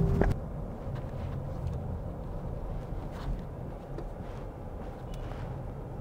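Steady low rumble of vehicle traffic. A louder sound with a steady tone cuts off just after the start.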